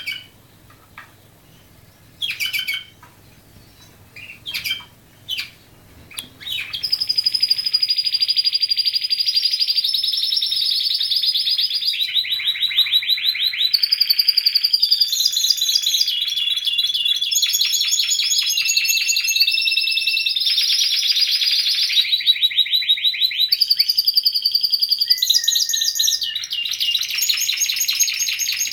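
Domestic canary song: a few short separate chirps over the first six seconds, then from about seven seconds in a long unbroken song of fast rolling trills and repeated phrases that change every second or two.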